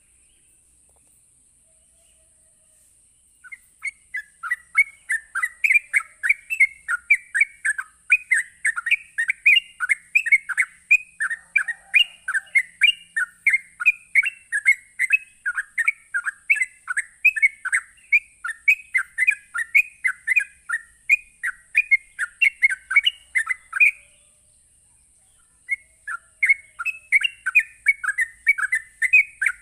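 Yellow-vented bulbul (trucukan) singing its rapid 'ropel' chatter: a fast, unbroken string of bright chirping notes, several a second. It starts a few seconds in, breaks off briefly near the end and starts again, over a steady faint high hiss.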